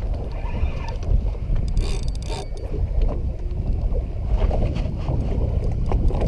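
Wind buffeting the microphone and sea water slapping a small boat's hull, with light clicking from a spinning reel being cranked.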